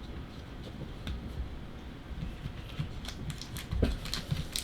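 Trading cards being handled and sorted: light clicks and taps of cards being flicked and set down, with a soft thump near the end.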